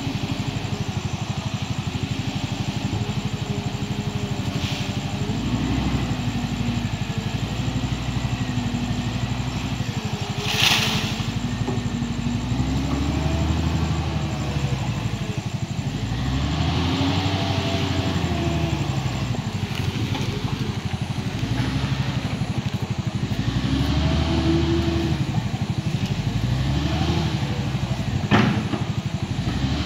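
Wheel loader's diesel engine working under load, its pitch rising and falling every few seconds as it revs while pushing landslide debris and trees. Two sharp knocks stand out, one about ten seconds in and one near the end.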